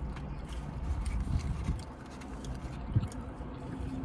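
Close-up eating and food-handling noises: small clicks and rustles over a low rumble, with one sharp knock about three seconds in.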